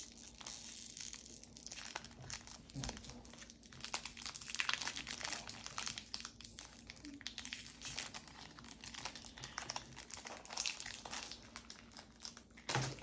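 Foil Pokémon card booster pack wrapper crinkling as it is picked at and torn open by hand, in irregular crackles with a louder crackle near the end.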